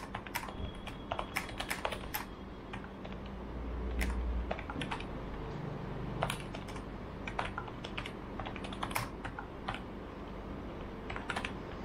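Typing on an HP K500F membrane gaming keyboard: irregular key clicks, some in quick runs, some spaced out.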